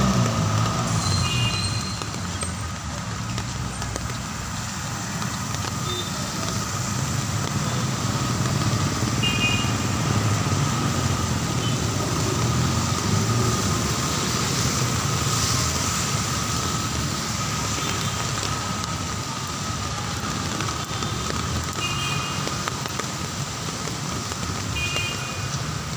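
Heavy rain falling steadily, mixed with the noise of vehicles passing on the wet road.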